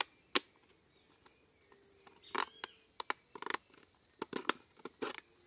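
Knife blade cutting into a thin plastic bottle: irregular sharp clicks and crackles of the plastic, some coming in quick clusters.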